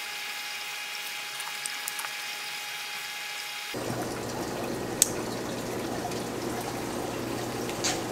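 Steady trickle and splash of water from a small aquarium's built-in filter. It sounds thin for the first few seconds, then suddenly fuller with a low hum. There are two light clicks, about 5 seconds in and near the end.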